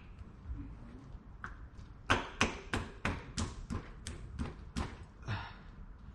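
The greased front axle of a Hawk 250 dirt bike being knocked through the wheel hub and fork by hand: about ten sharp, evenly spaced knocks, about three a second, starting about two seconds in.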